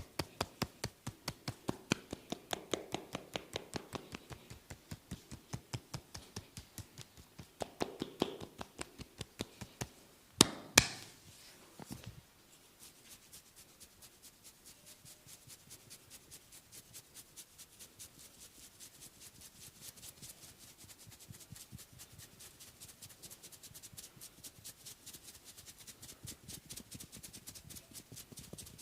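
Rapid rhythmic tapping of a percussive head massage, about four taps a second. Two sharp, louder slaps come just over a third of the way in, then the tapping turns lighter and faster.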